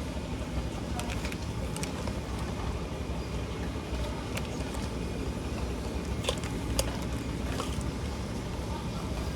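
Steady low rumble with several brief sharp clicks scattered through it, the loudest a little past the middle.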